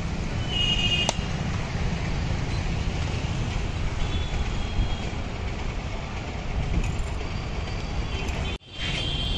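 Steady low rumble of street traffic, with a few light clicks in the first second; the sound cuts out for a moment near the end.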